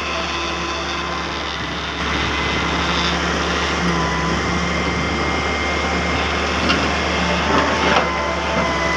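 A heavy diesel engine running steadily, with a few short knocks near the end.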